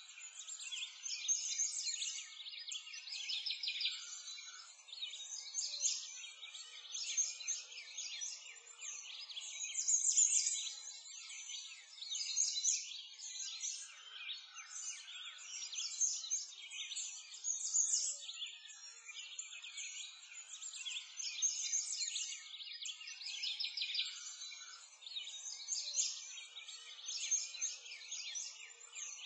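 Many small birds chirping and twittering in a dense chorus that swells and fades every couple of seconds.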